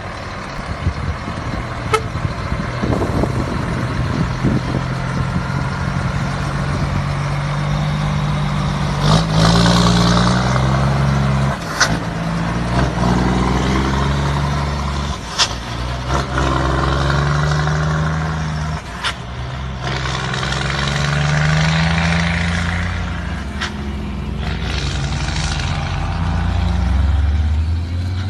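Scania truck's diesel engine rumbling, revved up and let back down several times, with a few sharp clicks along the way.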